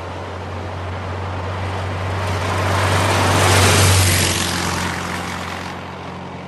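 A vehicle passing by: a steady low hum under a rushing noise that swells to its loudest a little past halfway, then fades away.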